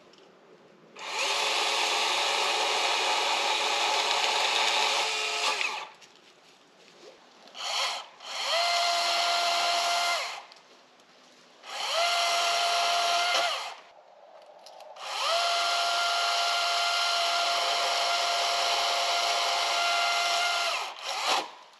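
DeWalt 60-volt battery chainsaw cutting up the top of a fallen tree. Its electric motor whines at a steady pitch in four runs of about two to six seconds each, spinning up and winding down each time, with two brief trigger blips.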